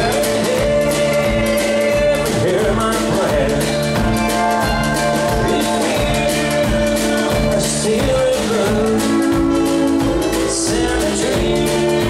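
A country band playing live: pedal steel guitar, acoustic guitar, electric bass and washboard, with a man singing.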